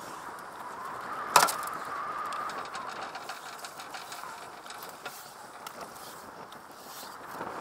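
Wooden capstan turning as the seine net's wing rope winds onto its drum, with a wavering creak of rope on wood and a single sharp knock about a second and a half in.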